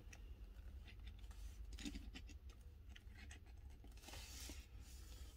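Faint handling sounds: small clicks and light scrapes of die-cast toy cars being moved about on a tabletop, with a short soft rustle about four seconds in.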